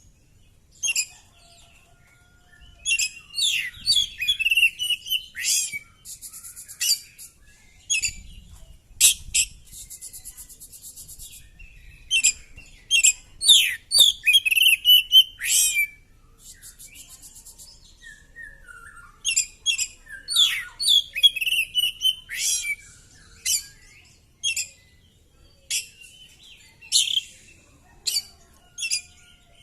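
Oriental magpie-robin (kacer) singing in full song: short bursts of varied whistles, chirps and sweeping notes, with several fast buzzy trills, broken by brief pauses.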